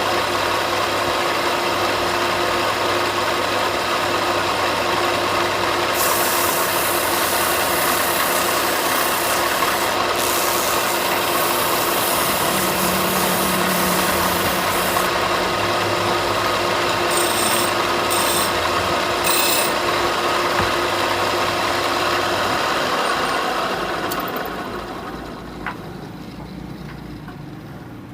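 A power tool running steadily on wood, a motor hum under an abrasive rasping whose hiss changes abruptly several times. It winds down and fades out about 24 seconds in.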